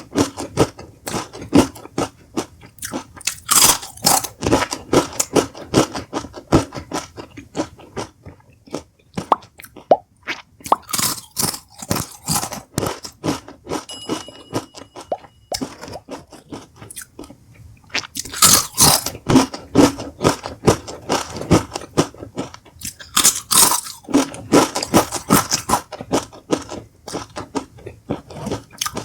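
Close-miked crunching of Doritos tortilla chips: loud snapping bites every several seconds, each followed by a run of rapid chewing crunches.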